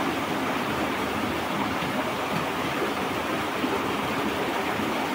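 Muddy floodwater rushing and splashing over rocks in a stream bed, a steady, unbroken rush.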